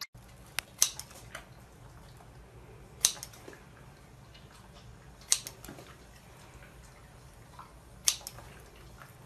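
Scissors snipping pieces off a sausage: a few sharp snips, the loudest about a second in and then roughly every two and a half seconds, over a faint low hum.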